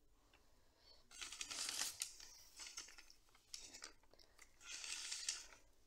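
Rustling and tearing of leaves and stems being handled: two short rustling bursts, about a second in and again near the end, with small clicks between.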